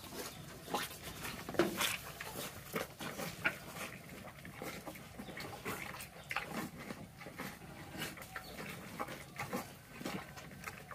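A cow eating wet mash from a metal pan: irregular slurping and smacking noises as it feeds.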